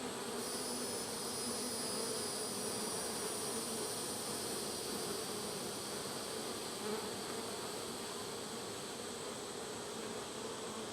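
Honeybee colony buzzing around an opened hive during an inspection: a steady, even hum.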